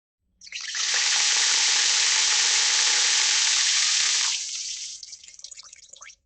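Water tap turned on: water runs from the faucet in a steady stream for about three and a half seconds, then drops to a softer, uneven trickle for a second and a half as the tap is turned off, stopping abruptly.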